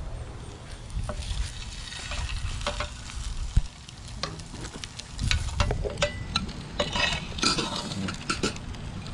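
Baby potatoes and boiled eggs sizzling in an electric skillet. A metal utensil clicks and scrapes against the pan many times as pieces are scooped onto a plate.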